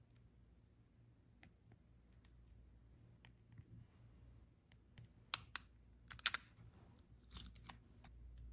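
Stationery handled on a desk while journaling: scattered sharp clicks and short paper rustles, busiest in the second half, the loudest click just past six seconds in.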